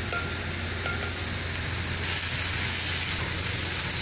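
Onion-tomato masala sizzling in a non-stick pan as cooked porridge is added and stirred in with a wooden spatula; the sizzle grows louder about two seconds in, with a couple of faint spoon clinks near the start.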